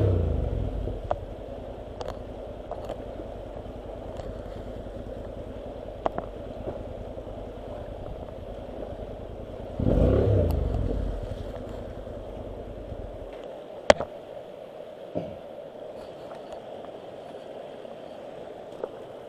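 Honda NC700's parallel-twin engine running at low speed, with a surge of throttle at the start and again about ten seconds in, then cutting out about thirteen seconds in. A rushing mountain stream goes on underneath, with a sharp click just after the engine stops.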